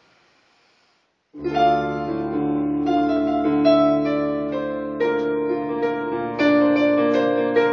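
Piano playing: after about a second and a half of silence, sustained chords begin and ring on, changing a few times.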